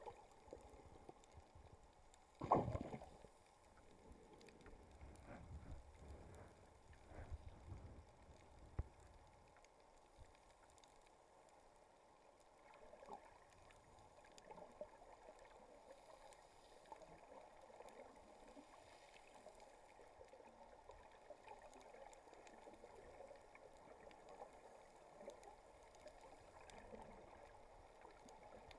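Faint, muffled underwater ambience: a low hiss of water with a dull thump about two and a half seconds in and a few softer knocks over the next several seconds.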